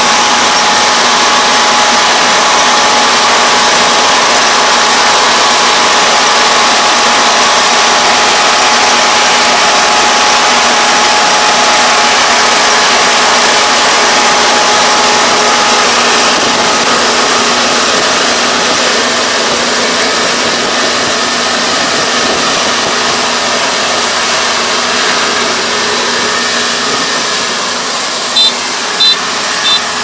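Iseki ER470 rice combine harvester running under load while it cuts and threshes, a steady loud machine noise with a constant whine, growing a little quieter in the second half as it draws away. Near the end a quick series of short high beeps starts.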